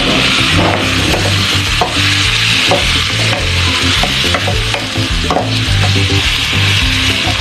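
Raw chicken pieces sizzling as they are sautéed in a hot wok. A wooden spatula stirs them, scraping and knocking now and then against the pan.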